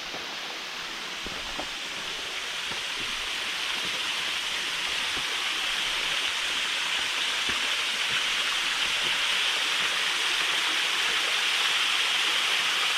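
Waterfall rushing steadily, growing gradually louder.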